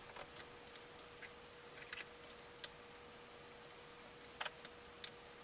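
Sparse, irregular clicks of computer keyboard keys being pressed, over a faint steady hum.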